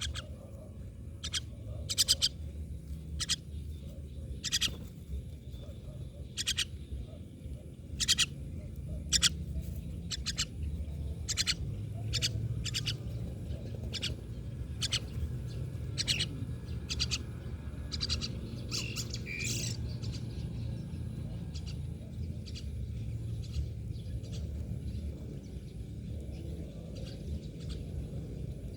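Myna birds giving a run of short, sharp, high calls, about one or two a second, which stop about two-thirds of the way through. A steady low rumble runs underneath.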